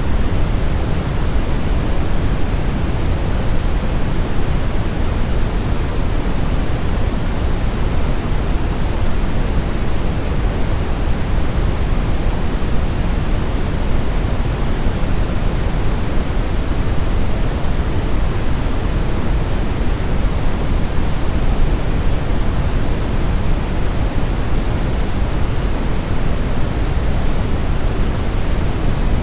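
Steady synthetic brown noise: a deep, even rushing hiss weighted toward the bass, without change or events.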